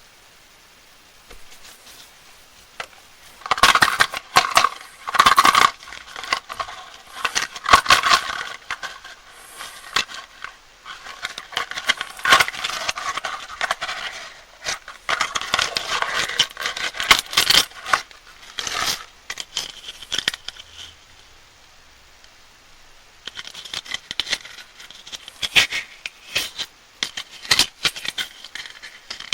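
Plastic candy wrappers being crinkled and unwrapped by hand, in bursts of crackling from about three seconds in, with a short lull about two-thirds of the way through.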